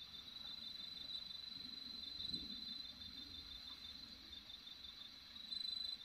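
Crickets trilling at night: one high, continuous trill, with a second trill just below it that pulses in runs of about a second.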